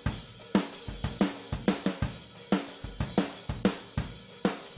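Live rock band starting a song, the drum kit loudest: kick, snare and cymbals in a steady driving beat, with bass and electric guitar playing along.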